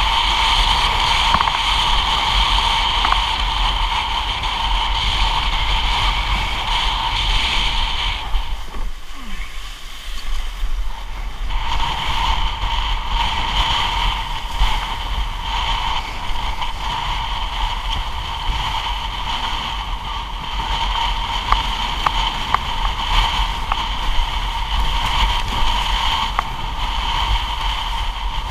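Wind buffeting an action camera and water rushing past a windsurf board as it planes through choppy sea, a loud steady rushing noise. It drops briefly about nine seconds in, and short sharp knocks come through in the second half.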